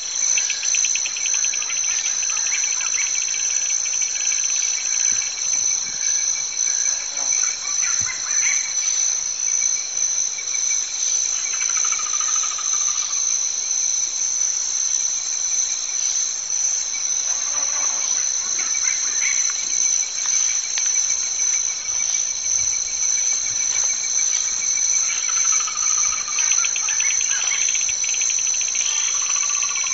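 Steady, high-pitched chorus of insects trilling without a break, with a few short chirps over it.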